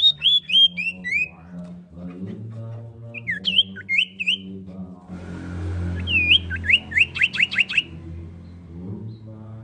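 Common iora calling: a quick run of about five falling whistled notes, a few more short notes a few seconds later, and then a fast series of about eight sharp, downward-sliding notes.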